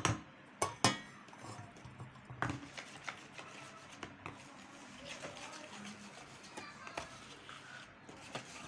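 Sharp metallic clinks as a steel bowl of flour and cocoa mix is knocked against a plastic mixing bowl to empty it, a few strikes near the start. Then a metal spoon scrapes and clinks lightly while stirring the dry mix into the batter.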